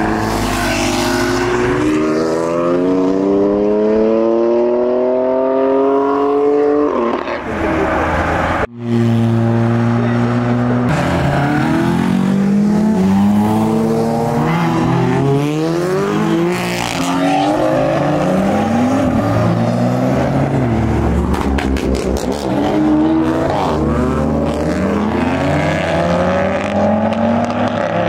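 Modified cars' engines revving and accelerating away one after another, pitch climbing as they pull through the gears, with several engines overlapping. A brief run of rapid pops a little over twenty seconds in.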